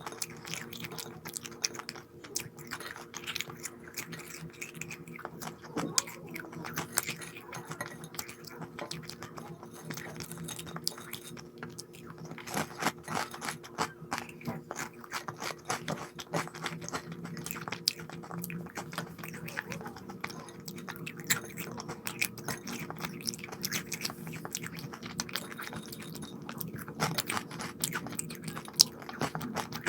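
A person chewing and crunching crisp snacks close to the microphone, a steady run of irregular crackly crunches, over a faint steady low hum.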